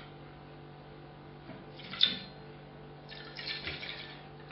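A CPU cooler being fitted by hand onto a motherboard's processor socket: one sharp click about two seconds in, then about a second of scraping and rubbing as it is worked into place.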